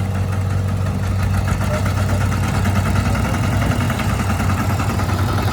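Engine of heavy farm machinery in a rice field running steadily, a loud, even low hum.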